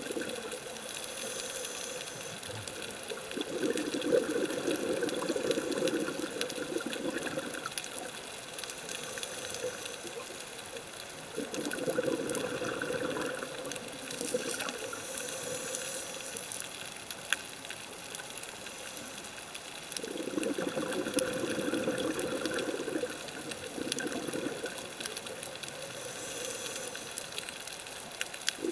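Scuba diver breathing through a regulator, heard underwater: a short hissing inhale followed by a longer rush of exhaled bubbles, the cycle repeating about every six to eight seconds.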